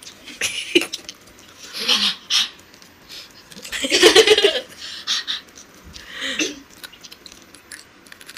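Two women laughing in several short, breathy bursts, the loudest about four seconds in.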